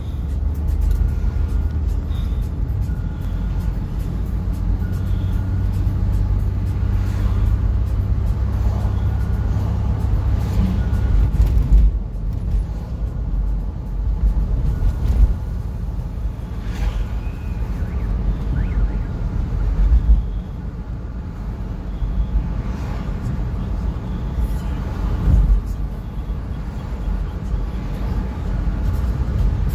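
Car driving along a road, heard from on board: steady low engine and road rumble with a few louder bumps. A faint short beep repeats about once a second for the first few seconds.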